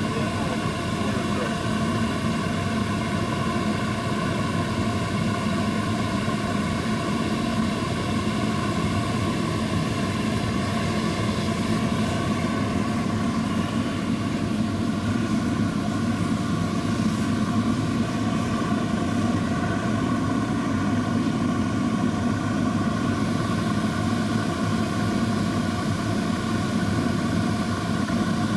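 Small diesel-fired furnace running steadily: the low roar of the burner under the constant whine of an Ozito vacuum cleaner motor used as the air blower.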